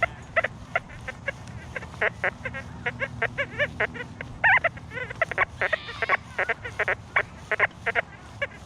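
XP Deus II metal detector giving a rapid string of short, low-to-mid beeps as the coil sweeps over trashy ground, with one brief higher tone about six seconds in. The low tones are from foil scattered in the soil rather than true iron.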